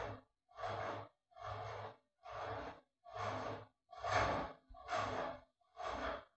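A breathy, sighing sound repeats evenly, a little more than once a second, with dead silence between each one. It sounds like a looped sound laid over the video, not sound from the room.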